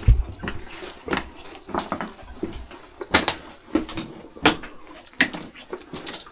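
Footsteps on loose slate rubble, a clinking crunch about every 0.7 s at a steady walking pace, in a small, echoing underground space.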